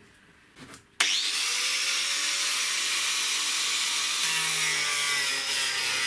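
Angle grinder with a cutting disc cutting into a plastic drum. It starts abruptly about a second in, with a whine that rises at first, then runs as a steady, loud grinding hiss.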